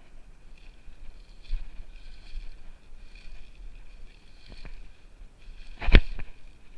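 Repeated bursts of rustling noise, with one sharp click or knock about six seconds in.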